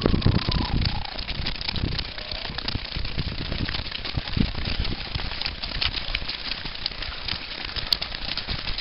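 Many runners' footsteps passing close by, an irregular patter of crunching, scuffing steps on a rough path and through grass. Wind buffets the microphone in about the first second.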